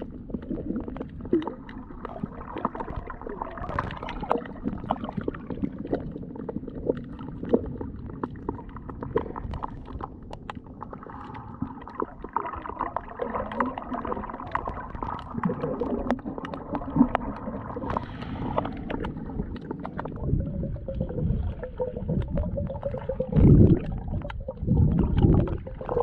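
Muffled underwater water noise picked up by a submerged camera: a steady churning wash with scattered faint clicks, and louder low gurgling surges near the end.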